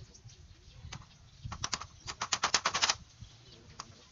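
Hammer tapping on split-bamboo slats, driving small nails. A few single taps, then about a second and a half in a fast run of sharp taps that lasts a little over a second.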